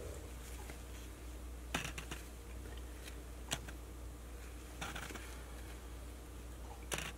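Handling noises from a paper towel and small feeding syringe held in the hand while feeding a newborn cottontail: five or so short crinkles and clicks, scattered a second or two apart, over a steady low hum.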